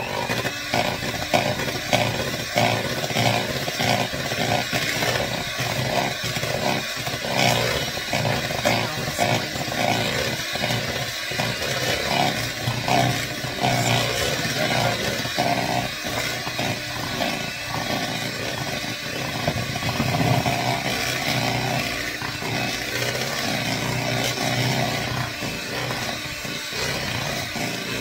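Electric hand mixer switching on and running steadily, its twin beaters churning thick spice-cake-and-pumpkin batter in a plastic bowl: a constant motor hum with irregular knocks and scrapes of the beaters against the bowl.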